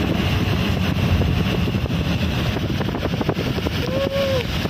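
Car driving through heavy rain on a flooded street: a steady low rumble with water hiss and wind buffeting the microphone. Scattered sharp ticks come through the middle, and a short tone rises and falls about four seconds in.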